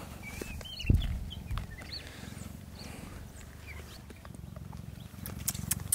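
Cheetah purring steadily, a low rumble that runs on without a break, with a single knock about a second in and a few faint short high chirps over it.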